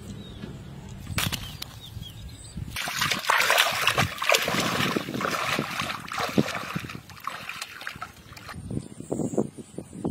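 Shallow water in a flooded rice paddy splashing and sloshing as a person wades through it. The splashing starts about three seconds in, is the loudest part, and dies away near the end.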